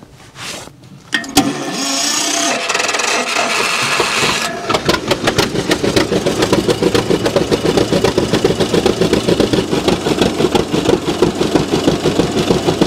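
John Deere G two-cylinder tractor engine being started: a click, about three seconds of cranking, then it catches and settles into a steady running beat. The start is a test run after a new spark plug was fitted in the cylinder that had not been firing.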